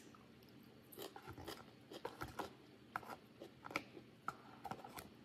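A person chewing food close to the microphone: a run of faint, irregular wet clicks and smacks.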